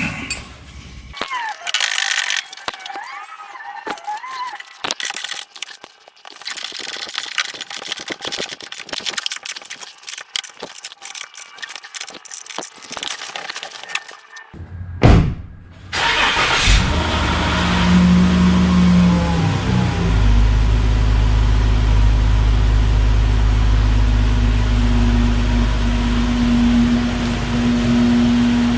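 A stretch of irregular clicking and rustling, then a car engine starts about halfway through and keeps running steadily.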